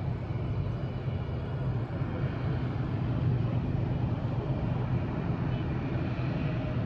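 Distant jet airliner's engines rumbling steadily as it rolls along the runway, with a faint high whine above the rumble.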